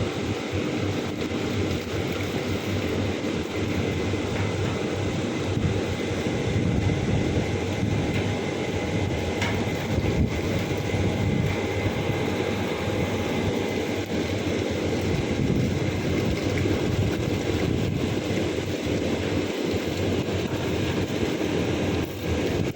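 Air conditioner running: a steady machine noise with faint constant tones over a low, unsteady rumble.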